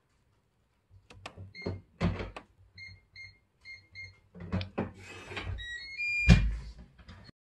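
Cartoon-style sound effects: a few knocks and thumps, several short repeated beeps, then a quick rising run of tones about six seconds in that ends on a loud low thump.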